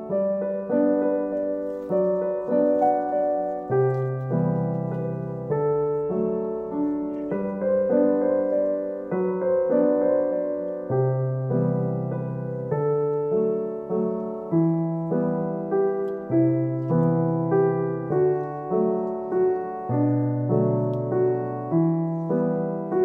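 Background piano music, a gentle melody with notes struck about once a second.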